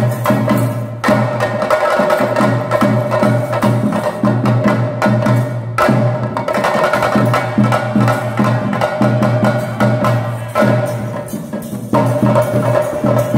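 Chenda drum ensemble playing fast, dense stick strokes for a Theyyam dance, the rhythm shifting pattern a few times.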